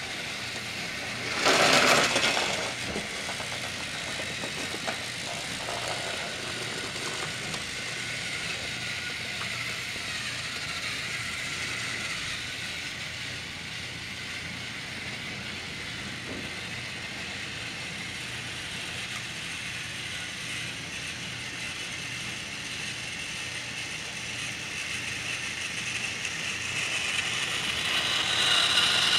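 Battery-powered TrackMaster toy train motors whirring steadily as the engines run along plastic track, with a brief louder burst about two seconds in. The whirring grows louder near the end as another engine draws close.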